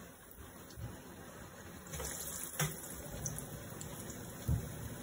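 Falafel balls deep-frying in hot oil in a kadai, a steady sizzle that swells about two seconds in as another ball goes into the oil, with a sharp click in the swell. A dull thump near the end is the loudest moment.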